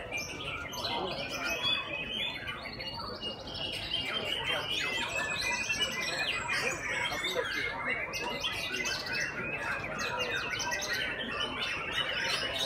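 Many caged white-rumped shamas singing at once: a dense, unbroken overlap of fast whistles and chirps.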